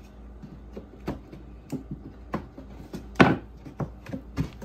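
Wooden beehive frame top bars being pressed one after another into the grooves of the end bars held in a frame assembly jig: about half a dozen light wooden knocks and clicks, the loudest a little past three seconds in.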